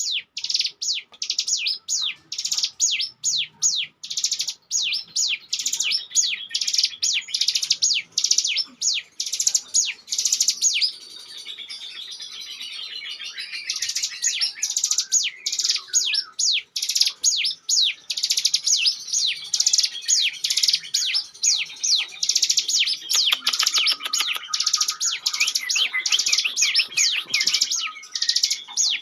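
Ciblek gunung (a prinia) singing in the rapid 'ngebren' style: a fast, unbroken stream of high, sharply falling chirps. About a third of the way in, the stream turns into a smoother continuous trill for a few seconds before the quick chirps resume.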